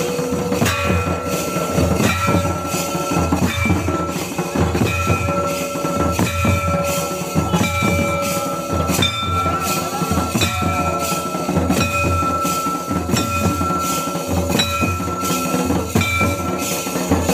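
Santali dance drumming: hand-played double-headed barrel drums (tumdak') beating a steady rhythm of about one and a half strokes a second, with a steady high tone held over the beat.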